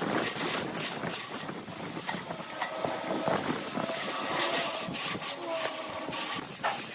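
Wood lathe spinning a blank of bamboo chopsticks and epoxy resin while a tool works the turning surface, giving a continuous hiss with irregular scraping strokes.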